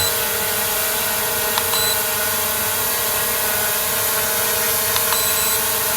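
SJRC F11S 4K Pro quadcopter's brushless motors and propellers hovering close by: a steady whine made of several tones, a bit noisy. Short high beeps sound twice, about two and five seconds in.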